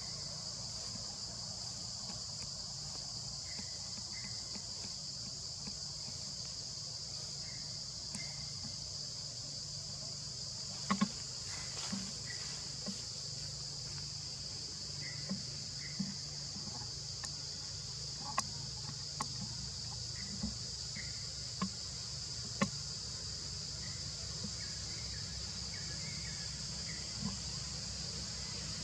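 Steady high-pitched insect chorus, an unbroken drone running under everything. A dozen or so short sharp clicks are scattered through the middle, the loudest about eleven seconds in, with occasional faint short chirps.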